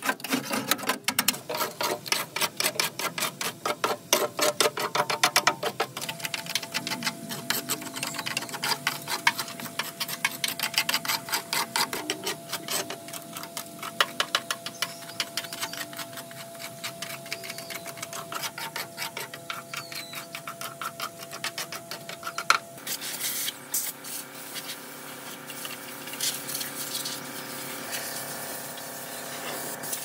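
A fast, steady run of sharp mechanical ticks for most of the stretch, with a thin steady whine under it. About three quarters of the way in it gives way to a small motor running with a steady hum.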